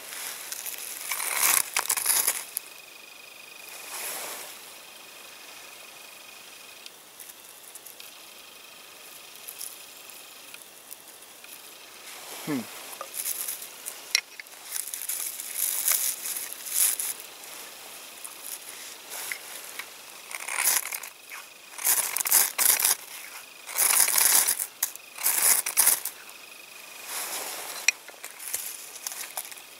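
Firesteel (ferro rod) being scraped hard with a striker to throw sparks onto dry lichen and bark tinder: repeated short, sharp rasps in bunches, most of them in the second half.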